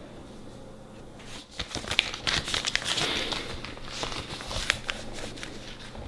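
A sheet of paper being handled and crumpled, with irregular crinkling starting about a second and a half in and going on until near the end.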